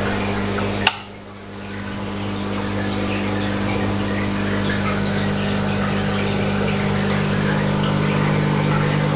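Steady hum of an aquarium pump with a wash of water noise. A sharp click about a second in, after which the sound drops away and builds back up over about a second.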